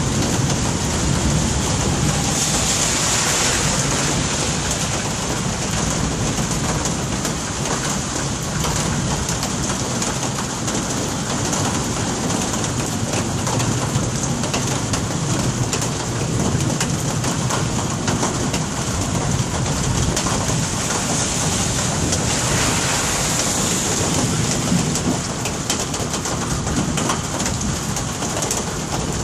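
Steady rain falling during a thunderstorm: an even hiss that swells twice, with a low rumble underneath.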